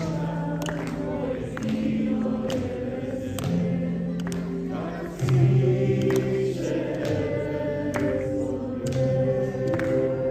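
Live music of voices singing together like a choir, holding long notes that change pitch every second or two, with sharp clicks scattered through.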